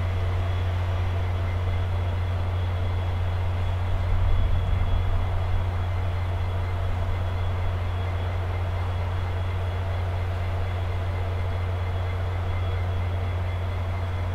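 Stationary passenger train idling: a steady low diesel hum with faint, steady whining tones above it, swelling briefly louder about four seconds in.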